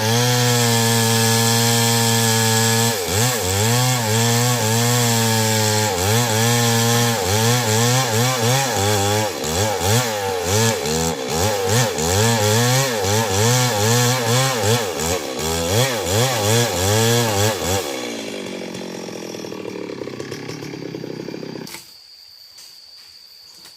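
Stihl MS 382 two-stroke chainsaw running at high revs, its pitch dipping and rising again and again as it cuts wood. Near the end the revs fall away and the saw stops. Insects chirp faintly after it stops.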